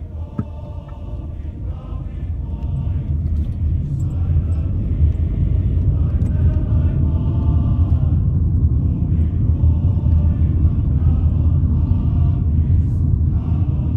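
Steady low rumble of a car driving, heard from inside the car, growing a little louder over the first few seconds. Music with singing voices sounds faintly over the rumble.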